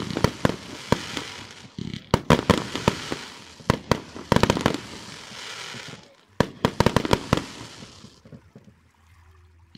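Fireworks display: volleys of sharp bangs from aerial shells bursting overhead, several bangs in quick succession per volley, with a hiss between them. The volleys die away near the end.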